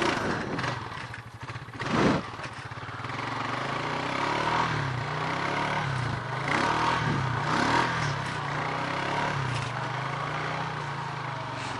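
Honda four-wheeler engine running under changing throttle, its pitch rising and falling repeatedly as the oversized slick tires spin and grab. There is a loud thump about two seconds in.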